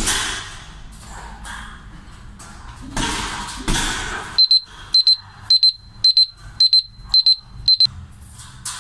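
A few hits land on a heavy punching bag, one at the start and two about three seconds in. Then an electronic gym round timer beeps high in quick double beeps, about two pairs a second, seven pairs in all.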